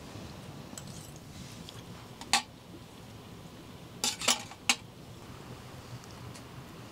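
Cutlery clinking against dishes during a meal: a single sharp clink about two seconds in, then three more in quick succession around four seconds in, over a low steady background.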